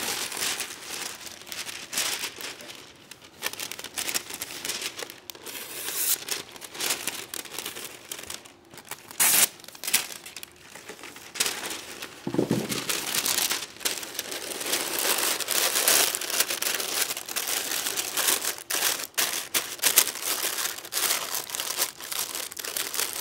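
Greaseproof paper crinkling and rustling in irregular crackles as it is handled over a cast iron Dutch oven and pressed down inside it as a liner.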